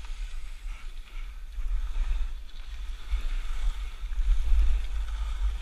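Wind rumbling on the microphone during a downhill ski run, with the hiss of skis sliding over packed snow; it grows louder from about two seconds in and is loudest near the end.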